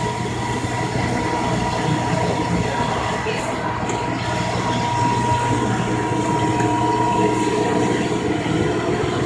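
1946 Monarch 10EE precision lathe running steadily: a constant mechanical hum with a steady high whine. A faint click or two come about three and a half seconds in.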